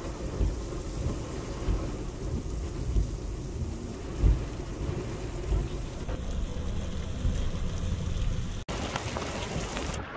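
Heavy rain pouring down and splashing on wet, puddled ground, with low rumbling swells every second or two. The sound drops out for an instant near the end.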